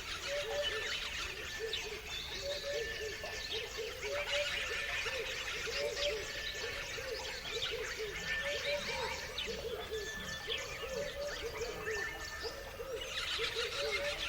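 A chorus of many small birds chirping and twittering together, with a lower call repeating steadily about every second or so underneath.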